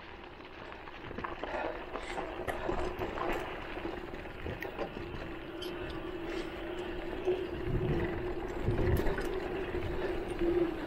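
Electric mountain bike's drive motor whining at one steady pitch under pedal assist, over tyre noise on the dirt and gravel trail. Scattered clicks and knocks come from the bike rattling over bumps, with low rumbles a little past the middle.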